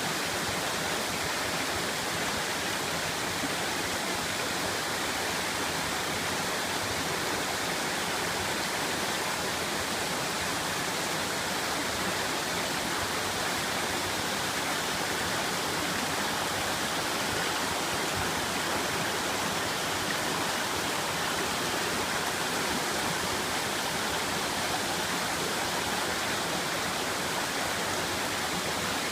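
Steady rush of water from Uriwari Falls, a small waterfall.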